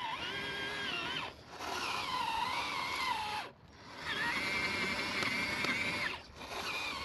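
Electric motor and gearbox of a 1/12-scale MN D90 6x6 RC crawler whining under throttle as it drives through mud, its pitch rising and falling with speed. The whine comes in runs of about two seconds, dropping out briefly about a second in, again after three and a half seconds, and near six seconds, as the throttle is let off and reapplied.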